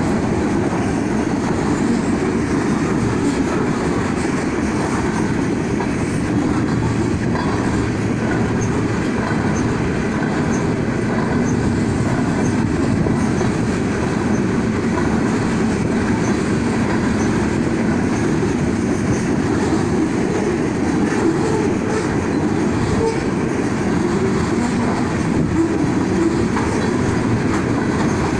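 Freight train of autorack and covered hopper cars rolling past at a grade crossing: a steady, unbroken noise of steel wheels running on the rails.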